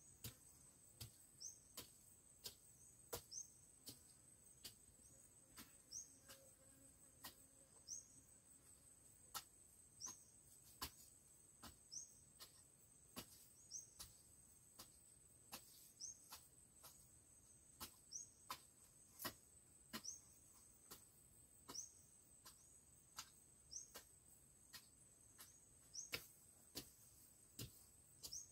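Faint, repeated sharp strikes of a hoe chopping into soil, about one to two a second, breaking up clods and working in manure and rice husk, over a steady high insect drone.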